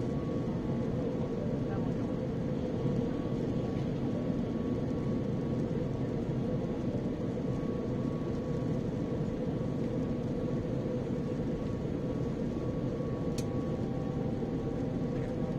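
Steady cabin drone of an Airbus A350 airliner in flight, the engines and airflow heard from inside the cabin, with a faint steady hum over the rumble. A brief faint click sounds near the end.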